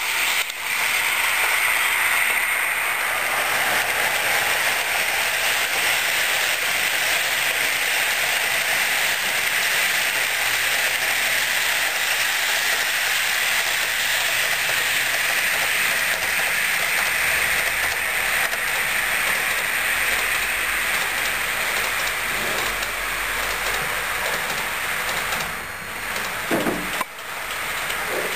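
Model passenger train running along the layout track: a steady whirring hiss of its wheels rolling on the rails, easing off briefly near the end, with a brief thump about two seconds before the end.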